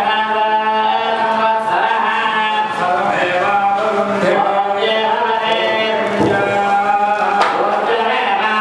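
Voices singing a Hindu devotional chant over a steady drone, with a few sharp percussion strikes.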